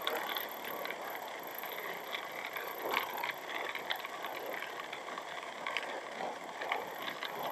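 Riding noise from a Honda Vario scooter moving along a rough, patched asphalt road: a steady hiss with frequent small rattles and clicks.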